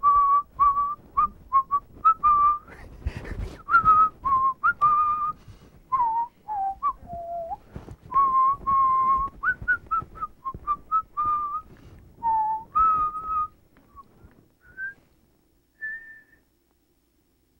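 A man whistling a tune through his lips: a string of short notes mostly around one pitch, with a brief run lower partway through. The notes thin out to a few scattered ones near the end and then stop.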